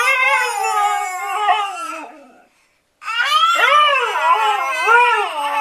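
A dog howling in two long calls, imitating a baby's crying: the first slowly sliding down in pitch and stopping about two and a half seconds in, the second starting about a second later and wavering up and down.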